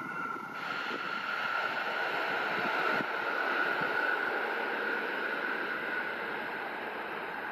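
EN57AL electric multiple unit running along the track as it moves away, a steady high whine over a rushing rumble.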